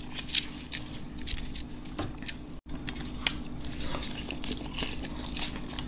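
Close-miked eating sounds: a person biting and chewing food, with scattered short crisp clicks and wet mouth smacks over a faint steady hum. The sound cuts out completely for an instant about two and a half seconds in.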